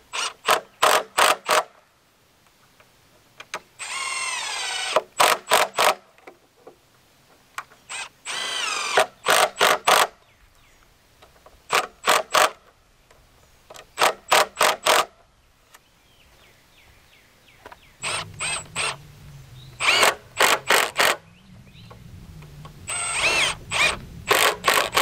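Cordless impact driver driving construction screws into 2x4 lumber, in repeated short runs of rapid clattering with a rising whine, each lasting about a second, with pauses between them.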